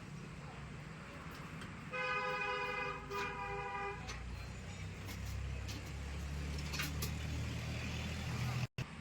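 A vehicle horn sounds about two seconds in, held for about two seconds, stepping slightly lower partway through. Under it runs a low engine rumble that grows louder in the second half, like a vehicle passing.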